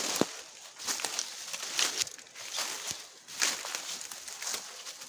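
Footsteps crunching through dry fallen leaves and undergrowth at an even walking pace, a crisp crackle roughly every second.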